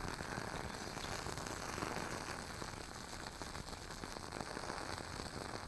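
Wooden wick of a lit WoodWick candle burning with a steady, fine crackle.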